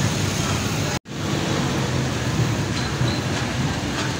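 Steady road traffic, with motorcycle and car engines passing close by. The sound cuts out briefly about a second in.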